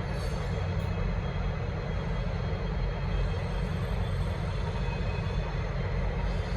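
Diesel-hauled V/Line passenger train running past with a steady rumble and rolling noise, no horn sounding.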